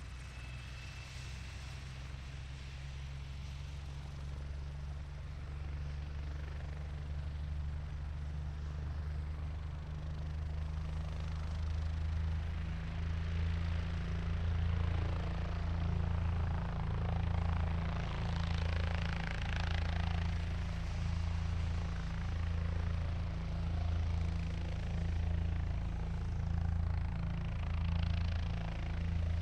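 Helicopter engine and rotor running, getting louder through the first half. A low throb swells and fades about every two seconds.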